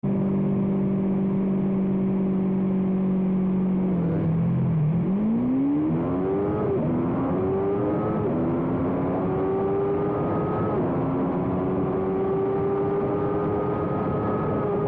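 Small-displacement racing motorcycle engine held at steady revs, then dipping as the bike launches about four seconds in. It then climbs hard through three quick upshifts and a long pull in a higher gear.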